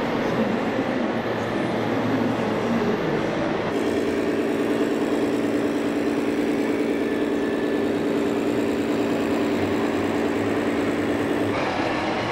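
Busy exhibition-hall noise. From about four seconds in until near the end, a steady hum of several even tones sits over it.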